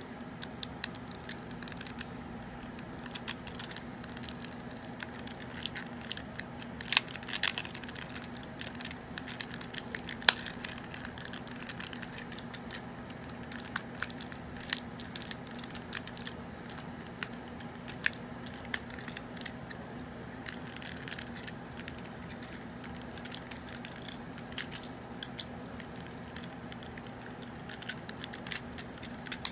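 Plastic clicks, snaps and rattles of a vintage G1 Transformers Hot Rod toy being handled and transformed from car to robot mode, its parts shifting and joints snapping into place. The clicks come irregularly, with a louder cluster about seven seconds in and a sharp snap about ten seconds in, over a steady low hum.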